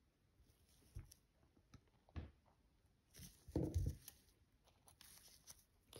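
Faint, scattered clicks and taps of watchmaker's tools and small watch parts being handled during movement assembly, with a louder knock a little past halfway.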